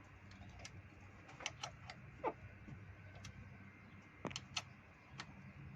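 Light, irregular clicks and ticks of a T27 Torx driver working on the screws that hold a Ford door latch, about a dozen sharp clicks scattered through, several close together around the middle and near the end.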